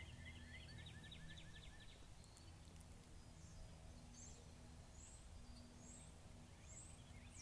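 Faint songbirds chirping: a quick run of chirps over the first two seconds, then short high notes about once a second, over a low steady background hum.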